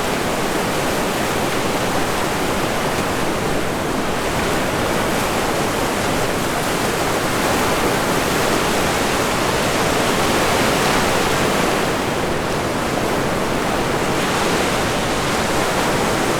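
Ocean surf breaking and strong wind blowing over the microphone, a steady rushing noise that swells a little about halfway through.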